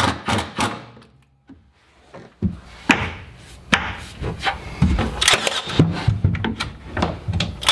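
Wooden knocks and bumps as a painted wooden shelf board is handled and pushed on its metal brackets: a few sharp knocks at the start, a second's lull, then a run of irregular knocks and thumps.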